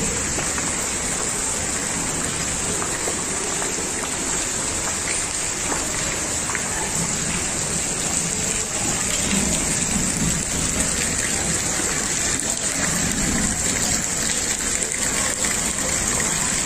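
Steady hiss and rush of heavy rain and floodwater flowing along a waterlogged street, with scattered small splashing ticks.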